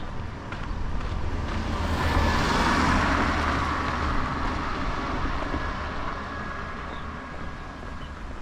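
A car passing by: its tyre and engine noise swells to a peak about two to three seconds in, then fades away. Wind rumbles on the microphone throughout.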